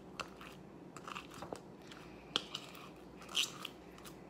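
Homemade slime being kneaded and pulled off the fingers by hand: scattered soft sticky clicks and crackles, with a few sharper snaps spread through.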